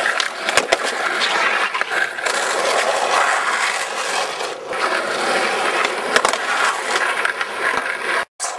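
Skateboard wheels rolling over asphalt: a steady gritty rumble with scattered sharp clacks from cracks and bumps in the road. It cuts off abruptly just before the end.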